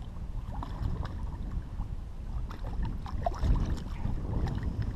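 Wind buffeting the microphone as a low rumble, with a few faint scattered clicks.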